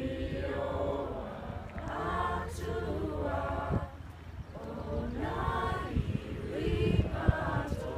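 A group of teenage boys and girls singing together unaccompanied, a slow song with long held notes.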